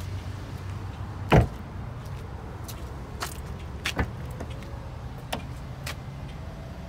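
A 2014 Cadillac SRX's rear passenger door is shut with one loud thud about a second and a half in, followed by a few lighter clicks and taps. A steady low hum runs underneath.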